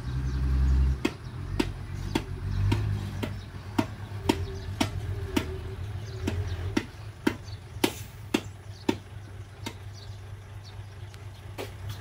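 Diesel engine of a loaded small dump truck running low as it drives slowly and manoeuvres, briefly louder in the first second. A sharp regular clicking, about two clicks a second, runs over it until about three quarters of the way through.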